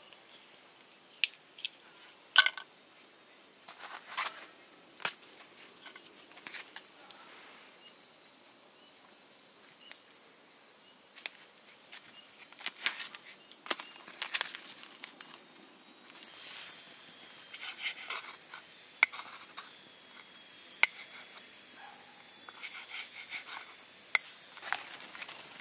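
Irregular small clicks, taps and clatters of things being handled, coming in scattered clusters and getting busier in the second half, where a faint steady high tone is also heard.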